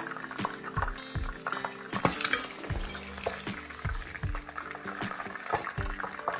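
Hot olive oil sizzling and crackling around rabbit pieces in a pan. A fork and a plastic spatula click and scrape against the pan as the browned pieces are lifted out.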